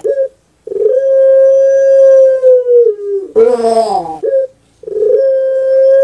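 Puter pelung turtle dove (Streptopelia risoria) cooing: a long, steady held coo that sags in pitch at its end, then a short rough call falling in pitch and a brief note. After a short pause a second long coo begins near the end.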